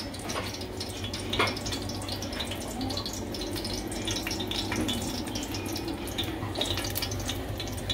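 Light crackling and bubbling from pots cooking on a gas hob, with a single knock about a second and a half in.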